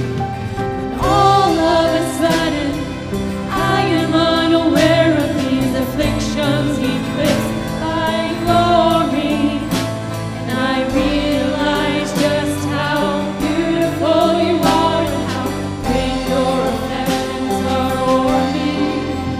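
A worship band playing and singing a contemporary Christian worship song: voices singing over sustained bass and keyboard chords, with a drum beat.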